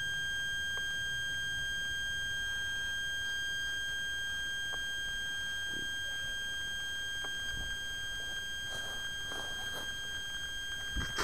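Steady high-pitched electronic whine with several overtones, over a low wind rumble on the microphone. Faint rustling in the grass starts near the end as someone walks up.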